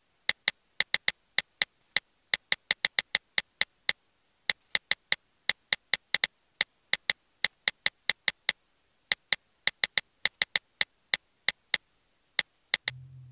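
Keyboard typing clicks: several dozen quick, sharp, identical clicks in uneven runs with short pauses between them. A low hum starts just before the end.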